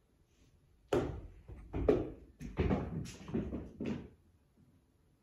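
About eight sharp knocks and thuds on a hardwood floor over three seconds, starting about a second in. They come from a thrown ball bouncing away across the floor and the cat running after it.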